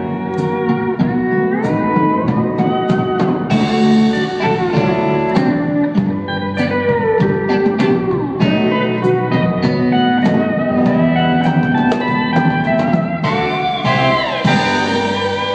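Instrumental band playing live: pedal steel guitar sliding between notes over electric guitar and a drum kit.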